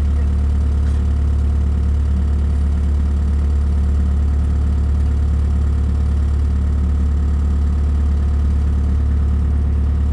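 An engine idling steadily, giving a constant low drone with no change in speed.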